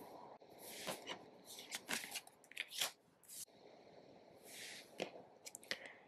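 Tarot cards being turned over and laid down on a wooden tabletop: soft papery slides and light taps, with a scatter of short clicks throughout.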